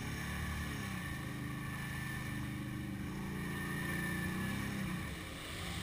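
Quad bike (ATV) engine running, its pitch rising slowly under throttle and then dropping back about five seconds in.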